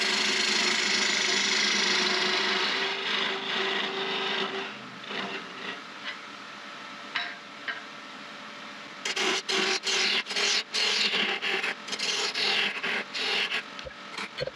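Wood lathe spinning a small finial blank while a turning tool cuts it into an acorn shape. A steady hissing cut over the lathe's hum fades after about three seconds into lighter, scattered touches. About nine seconds in comes a run of short, quick cuts, several a second.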